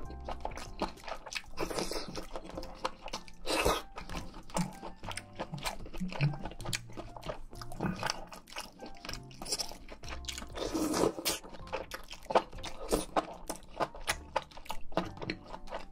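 Close-miked eating: a person biting and chewing crunchy food, with many small wet mouth clicks between irregular crunches.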